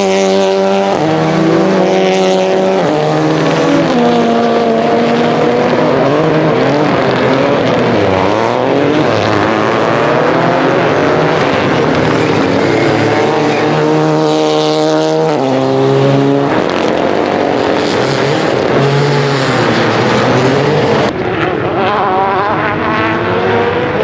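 Rally car engine under hard acceleration on a tarmac circuit stage, its pitch climbing and then stepping down at each gear change, several times over. About a third of the way in the note sinks and rises again, as with braking into a corner and powering out.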